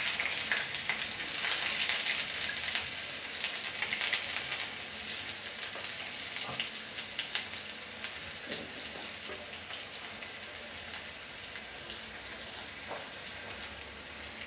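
Chopped shallots frying in hot oil with mustard seeds in a small pan for a tempering: a dense sizzle full of small crackles that slowly softens as the onions cook.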